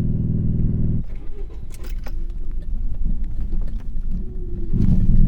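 MG ZR's misfiring engine running, then cutting out abruptly about a second in as it stalls; the car rolls with the engine dead, and near the end the engine catches again and runs louder as it is bump-started downhill. The misfire is put down to failing coil packs.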